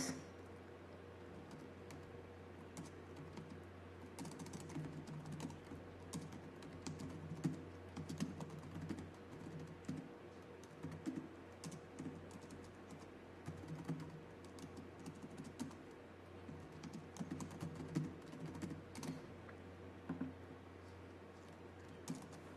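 Computer keyboard being typed on in uneven runs of light keystroke clicks, with short pauses between runs, over a steady low hum.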